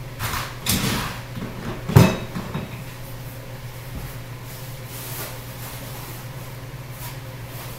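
Parts and packaging being handled: rustling and a few knocks, with the loudest thump about two seconds in, then only a low steady hum.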